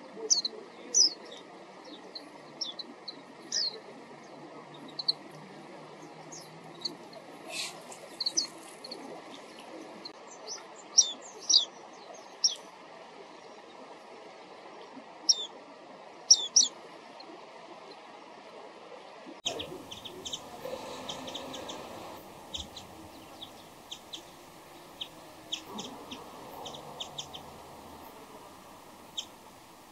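Small wild songbirds calling with short, sharp, high chirps, a few at a time in the first half. About twenty seconds in the background changes abruptly and a quicker run of chirps follows.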